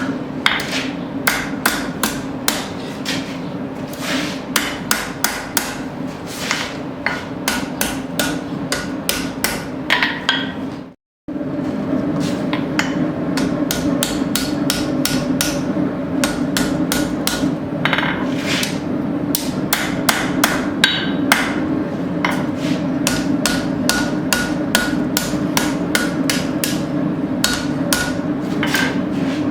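Blacksmith's hammer striking hot steel bar stock on an anvil in a steady rhythm of about two to three blows a second, shaping a smooth bend. A steady hum runs underneath, and everything stops briefly about eleven seconds in.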